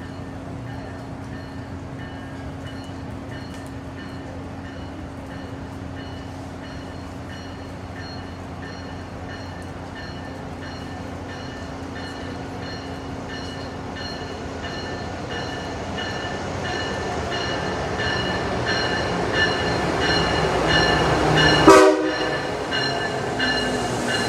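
Amtrak Acela Express trainset approaching along the station platform, growing steadily louder as it draws near. A short, loud blast sounds about three seconds before the end.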